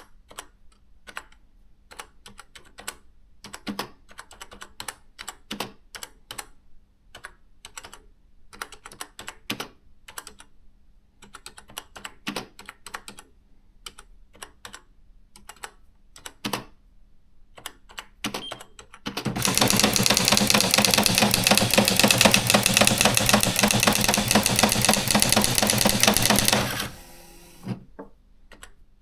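Olivetti ET Compact 60 electronic typewriter typing in irregular single strokes. About two-thirds of the way in comes a loud, fast, unbroken run of print strokes lasting about seven seconds, then a few more single strokes.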